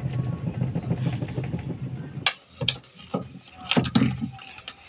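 A twin-tub washing machine's newly fitted spin motor runs with a steady low hum, then stops suddenly about two seconds in. A few short clicks and knocks from handling the parts follow.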